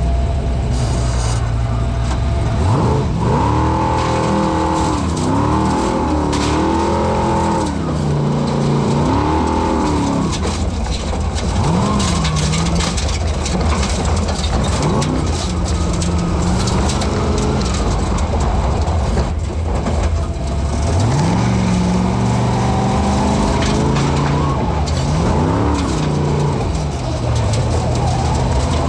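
Formula Offroad hill-climb car's engine, heard from inside the open cockpit: running at a steady low note for the first few seconds, then revving up and dropping back over and over as the driver works the throttle on the steep dirt slope. Loose dirt and stones clatter against the car's body.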